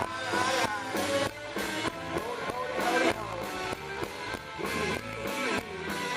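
Live country-rock band playing with a steady drum beat and guitar prominent.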